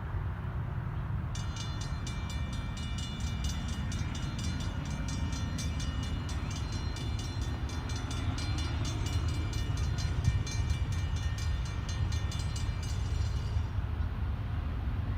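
Low rumble of a train, with a grade-crossing warning bell ringing rapidly and evenly from about a second in until it stops near the end.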